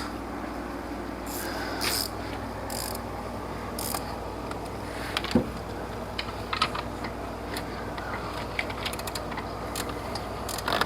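Socket ratchet clicking in short irregular runs, with scattered metallic clicks and scrapes, as a bolt is worked into the alternator mounting bracket.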